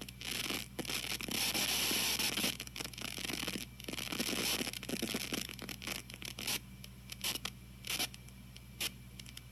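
Interference noise from a TG-TEK tablet's headphone output, turned right up: a scratchy, crackling hiss full of rapid clicks, heaviest in the first half and thinning to scattered pops near the end, over a low steady hum. It comes on while the tablet loads a page, a fault the owner suspects is feedback from the CPU, memory or SD card.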